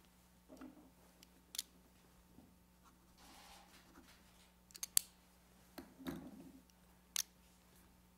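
A pen and paper handled at a desk while a document is signed: a few sharp clicks, a quick cluster of three about five seconds in, and soft knocks on the desk top.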